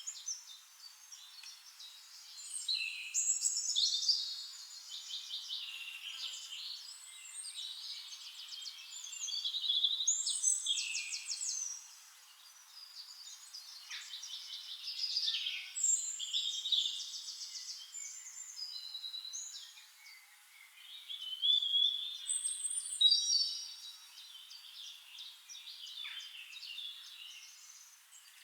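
Several songbirds singing together, overlapping chirps, whistled phrases and fast trills, coming in louder bouts every few seconds.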